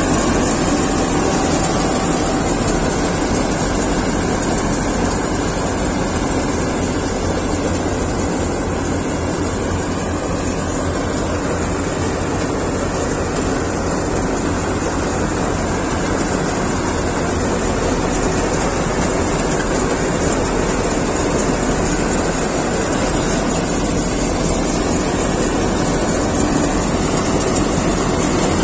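Kartar 4000 combine harvester running steadily while it cuts and threshes paddy: an even, unbroken engine and machinery noise.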